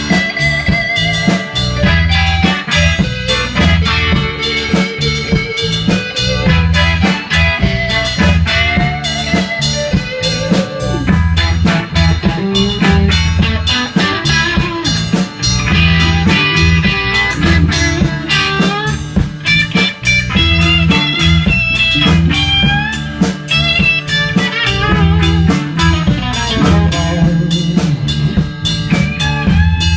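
Instrumental break of a blues-rock song: electric guitar playing bending lead lines over bass and a drum kit with a steady beat.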